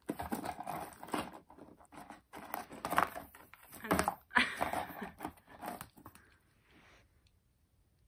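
Pomeranian puppy rummaging through a cardboard box of toys: a run of rustling and crinkling noises, loudest around three and four seconds in, that dies away about six seconds in.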